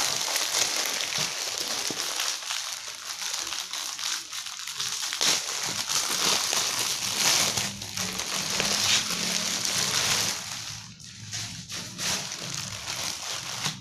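Clear plastic packaging bag around a set of car battery jumper cables crinkling and crackling irregularly as a hand grips and squeezes it, a little quieter in the last few seconds.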